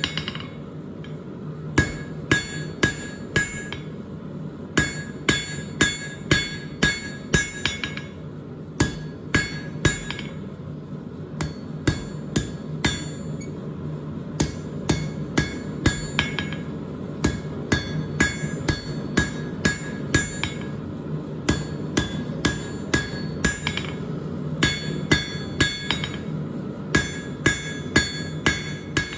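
Blacksmith's hammer striking a 1/2-inch square steel bar on an anvil, in runs of several ringing blows at about two to three a second with short pauses between runs, over a steady low hum.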